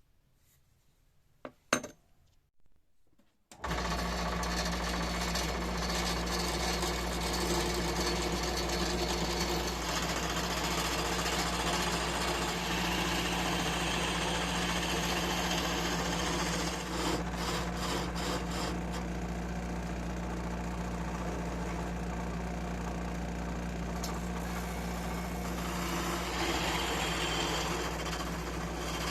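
A couple of clicks, then an electric power tool switches on about three and a half seconds in and runs steadily, a low motor hum under a rough, hissing noise.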